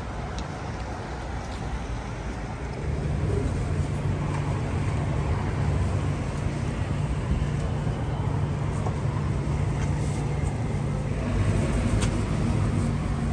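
Road traffic: the steady noise of passing vehicles, with a large engine's low rumble that comes up about three seconds in and holds steady. There is one sharp click near the end.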